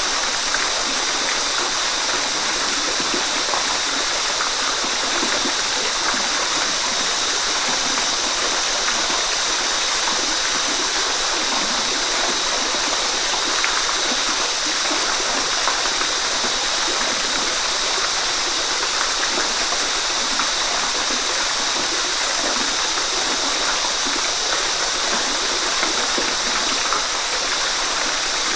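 Waterfall: a steady, unbroken rush of falling water, mostly a bright hiss with little deep rumble.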